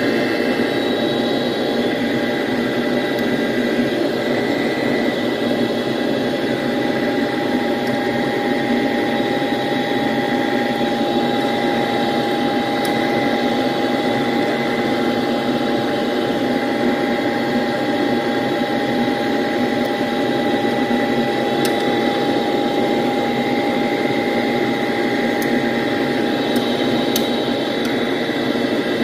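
A fan motor humming steadily with a few constant whining tones, and a few faint light clicks in the second half.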